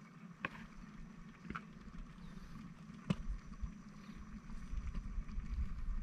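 Wind rumbling on the microphone outdoors, growing stronger in the second half, with a few light clicks and taps as fish pieces are handled and dredged in flour in a plastic container.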